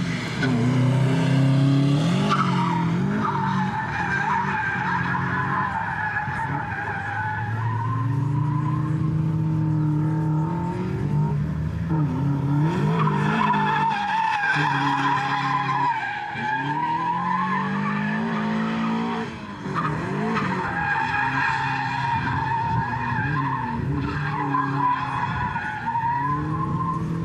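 A drift car being driven hard: the engine revs up and down repeatedly as the driver works the throttle through the drift. The tyres squeal almost continuously, with a wavering pitch.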